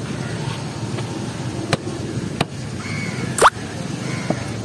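Knife chopping fish on a wooden chopping block: a few sharp knocks, the loudest about three and a half seconds in, over steady street background noise.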